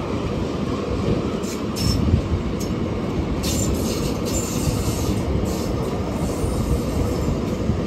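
Indian Railways passenger express coaches rolling past on the track: a steady rumble of wheels on rail, with scattered short, sharp clicks.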